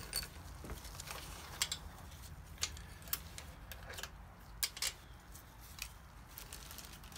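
A handful of light, scattered clicks and taps as a socket wrench and gloved hands work on the nuts and studs of a VW Beetle engine case, over a low steady hum.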